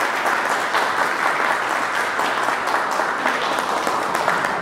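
Crowd applauding: a dense, steady wash of many hands clapping.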